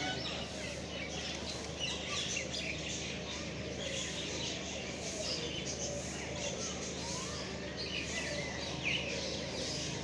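Many small birds chirping continuously, short overlapping chirps, over a steady low hum.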